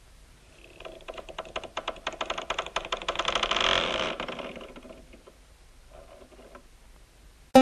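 Rapid rattle of gunfire, many shots a second, swelling and then fading away over about four seconds.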